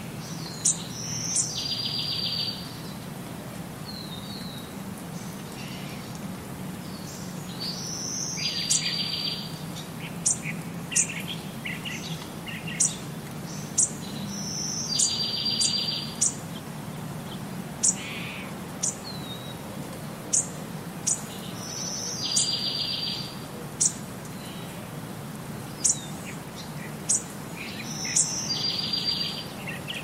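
A songbird repeating the same short song about every seven seconds: a high note followed by a buzzy trill lasting about a second. Many short, sharp, high chips or ticks fall between the songs, over the steady hiss of rain.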